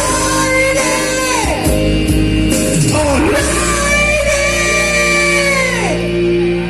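Rock ballad played by a band: a singer holds two long, high notes, each falling away at its end, over sustained guitar and bass.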